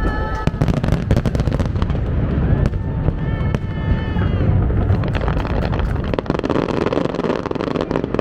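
New Year fireworks going off in a dense run of bangs and crackles over a low rumble. Twice, a long held high tone rises and then holds above the bangs: once at the start, and again from about two and a half to four seconds in.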